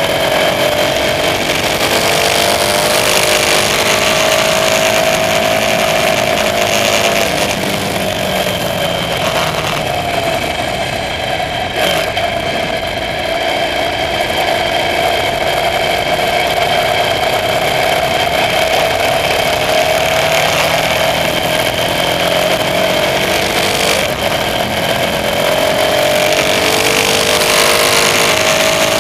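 KTM Super Duke R's V-twin engine under way, its pitch falling and rising several times as the bike slows for and pulls out of the bends, over a steady rush of wind.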